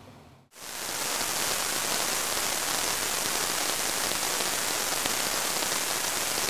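Synthesized frying-pan sizzle from a noise-impulse temperature sonification, set at its most intense for Venus's very high temperature. It starts about half a second in and stays steady, with no rise or fall, because Venus has no temperature change.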